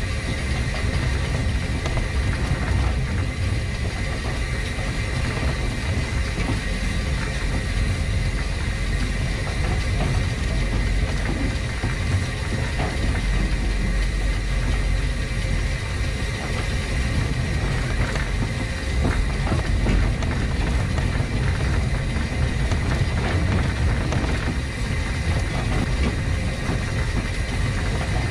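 1915 Orenstein & Koppel steam tram locomotive running light along the track: steady mechanical running noise of the engine and its wheels on the rails, with a thin steady high tone over it.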